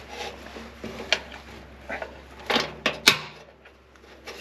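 Metal snowblower gearbox parts (bearing housing, shaft and gear) clinking and knocking as they are handled by hand: a series of irregular sharp clicks, loudest about three seconds in.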